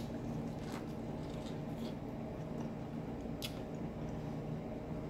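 Close-miked biting and chewing of buttered corn on the cob, with soft wet mouth clicks and one sharper click about three and a half seconds in, over a steady low hum.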